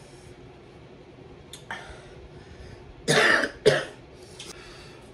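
A woman coughing: a short cough about one and a half seconds in, then two loud coughs in quick succession about three seconds in. The coughing is set off by the burn of very hot sauce.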